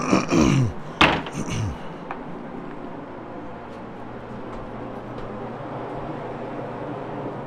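Rotary carpet-cleaning machine being tipped back on its wheels and moved, with clatter and a sharp knock about a second in. After that comes a steady mechanical hum.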